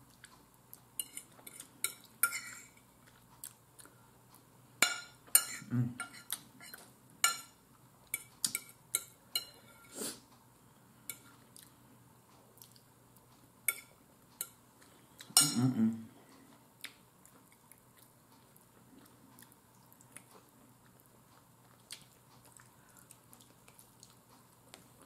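Metal fork clinking and scraping against a plate as food is picked up and eaten, in quick sharp clicks through the first two thirds. After that only faint small sounds of chewing and biting on a piece of chicken.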